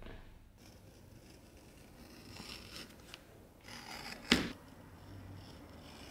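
Small hand tool shaving the edge of a leather piece on a workbench: short scratchy scraping strokes as thin strips of leather peel off. About four seconds in there is a single sharp knock, the loudest sound.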